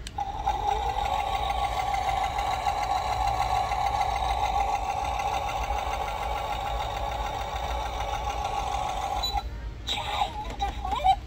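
Animated skeleton sewing-machine Halloween prop running its demo: a steady sewing-machine whir for about nine seconds that stops abruptly. Near the end a wavering electronic voice effect starts from the prop.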